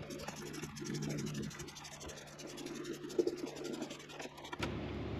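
A heater hose clamp being tightened with a hand tool: a faint, fast run of ticking and scraping that stops about four and a half seconds in.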